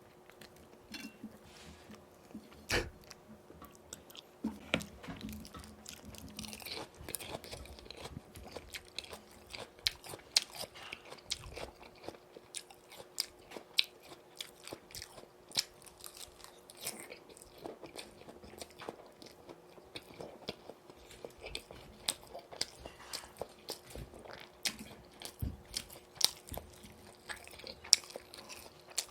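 Close-miked biting and chewing of crispy boneless fried chicken in yurinji sauce, with many sharp crunches of the fried coating throughout.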